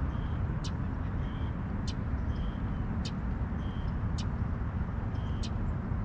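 Steady low rumble of distant road traffic. Over it a bird calls over and over, a sharp high chip about once a second alternating with a short lower note.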